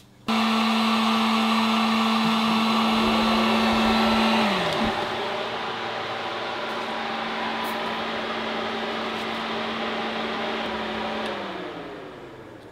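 A heat gun switched on with a sudden steady whir, then shut off about four seconds in with a falling pitch as its motor winds down. An electric radiator fan from an E36 BMW M3 conversion, set off by its temperature sensor being heated, keeps blowing air, then spins down and fades near the end. This shows the fan's temperature switch working.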